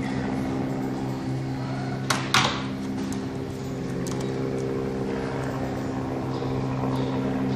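Steady machine hum, with a short metallic scrape and click about two seconds in from a screwdriver working the terminal screw of a push-button switch.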